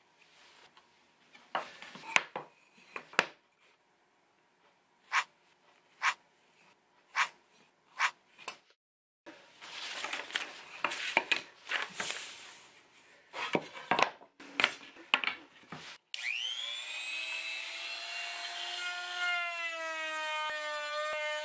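Sharp knocks of tools and wood on a workbench, about one a second, then a stretch of wood sliding and rubbing. About three quarters of the way in, a trim router starts with a rising whine and runs steadily, its pitch sagging a little near the end.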